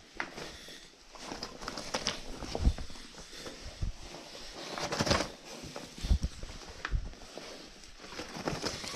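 Caver's jacket rustling and scraping against rock as he squeezes through a tight cave passage, with irregular knocks and scuffs and a louder scrape about five seconds in.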